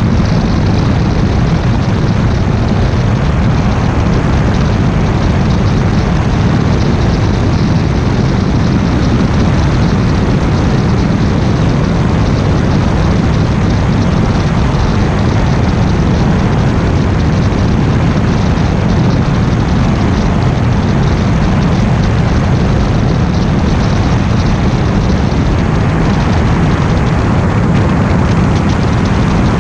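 Single-engine biplane's propeller engine running steadily in level flight, heard from outside on the fuselage with heavy wind rush over the microphone. The sound is loud and unchanging throughout.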